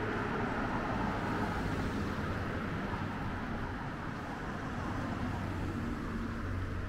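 Cars driving past on a road: a steady wash of tyre and engine noise that eases off, then swells again as another car goes by about five seconds in.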